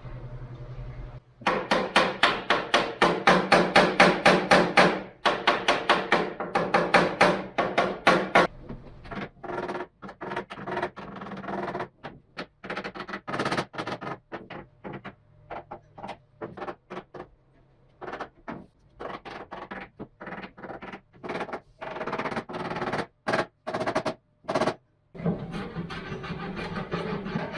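A hand tool working wood in quick repeated strokes, about four or five a second, then slower, spaced strokes, turning to a continuous rubbing near the end.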